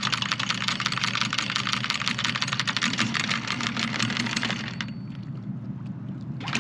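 Anchor windlass hauling in chain: a rapid, even clatter of chain links clicking over the gypsy, stopping about five seconds in and starting again briefly near the end, over a steady low engine hum.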